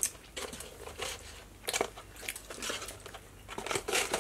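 Eating sounds: someone biting and chewing barbecue ribs, with an irregular run of short sticky clicks and smacks.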